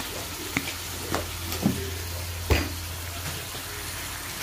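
Oil sizzling in a wok as a metal spatula stirs the frying food, with four sharp knocks of the spatula against the pan, the loudest about two and a half seconds in.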